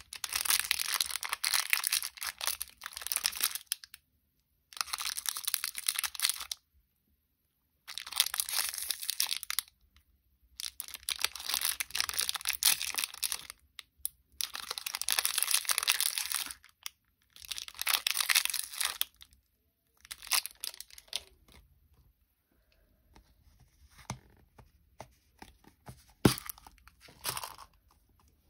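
Glue slime being handled: crackling, tearing sounds in bursts of one to three seconds with short pauses between, about eight bursts, growing sparser and fainter near the end.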